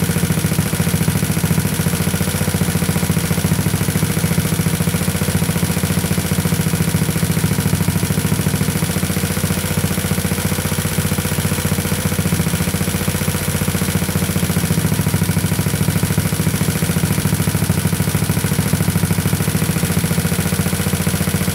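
GY6 big-bore scooter engine, a single-cylinder four-stroke, idling steadily through a free-flow exhaust. Meanwhile its carburettor's air-fuel screw is turned half a turn counterclockwise to richen the mixture.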